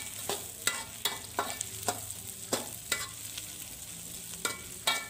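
A spatula scraping and knocking against a metal wok in quick, irregular strokes, pausing briefly a little past the middle, over the steady sizzle of chopped shallots, garlic, onion and chillies frying in hot oil as they are sautéed until fragrant.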